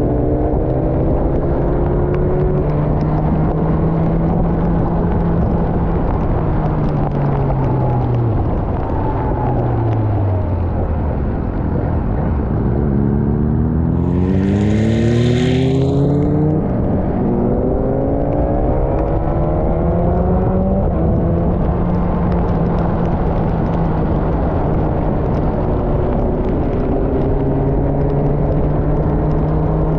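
Motorcycle engine running under way with a rush of wind: the engine note drops about a third of the way in, then climbs twice as the bike accelerates, and settles back to a steady pitch. A brief hiss with a falling tone cuts in about halfway through.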